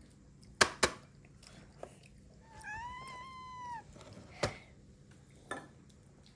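Ragamuffin cat giving a single meow of just over a second, rising, holding, then falling, a few seconds in. Two sharp taps come shortly before it and another after it.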